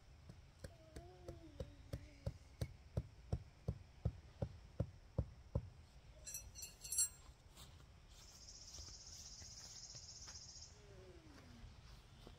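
A tent stake being hammered into the ground with a mallet: about fourteen blows at roughly three a second, followed by a short rattle of clinks about seven seconds in. Then an insect buzzes steadily and high-pitched for a couple of seconds.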